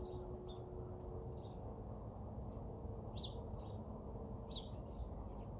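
Garden birds chirping: short, high chirps come and go, with a few quick pairs about three and four and a half seconds in, over a steady low outdoor background noise.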